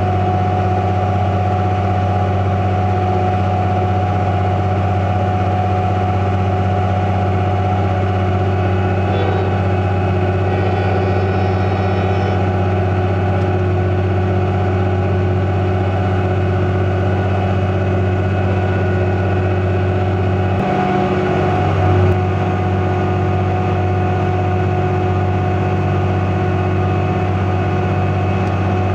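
Engine of potato-harvesting machinery running steadily as a constant deep drone, with a brief bump in level about three-quarters of the way through.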